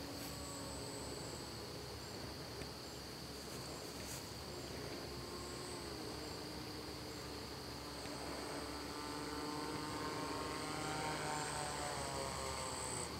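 Crickets chirring steadily. Under them is the faint hum of a foam RC plane's motor and propeller, its pitch shifting with the throttle and rising over the last few seconds as the plane comes in to land.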